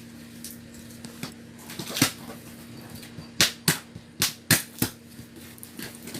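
A gift box being opened by hand: a series of sharp snaps and rips, one about two seconds in and then five quick ones in a row, as tape and cardboard flaps are pulled loose.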